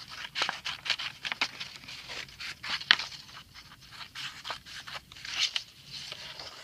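Scissors cutting through paper: a run of quick, irregular snips with the paper rustling.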